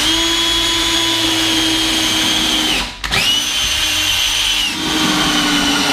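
Cordless drill driving a screw through a wall-mounted board into a wall stud. It runs in two long steady bursts with a brief stop about three seconds in, and the motor's whine drops in pitch near the end of each run as it loads up.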